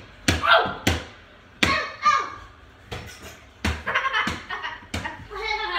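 A run of sharp knocks or thumps, irregular and about one every half second to a second, with short bits of a voice between them.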